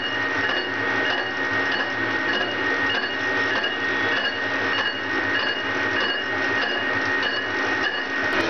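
Metal lathe turning an octagonal steel plate, with a boring bar taking an interrupted cut across the plate's corners. The machine runs steadily with a high squealing tone and a faint regular pulsing.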